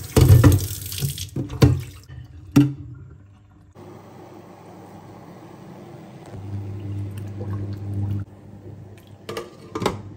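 Kitchen tap running onto a whole raw chicken in a stainless-steel sink, splashing with a few sharp knocks, for the first two to three seconds. Then a quieter stretch with a low hum, and just before the end a couple of clinks as a glass lid is set on a steel stockpot.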